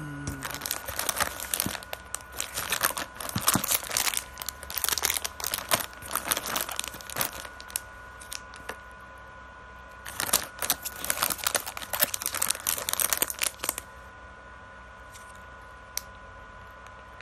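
Crinkly plastic snack bag of cat-paw marshmallows crackling as it is handled and turned over, in two spells of several seconds with a short pause between.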